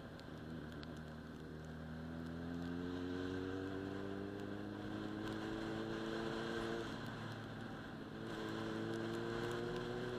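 Sportbike engine accelerating. It holds steady at first, then its pitch climbs from about two seconds in. Near seven seconds the pitch falls away at an upshift, and a second or so later it climbs again in the next gear. A steady rush of noise runs underneath.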